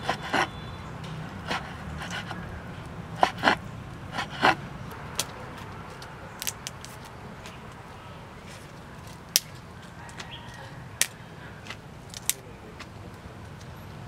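Cleaver chopping raw beef on a wooden board: irregular sharp knocks through the first five seconds or so. Later, a few sparse sharp snaps as leafy greens are handled.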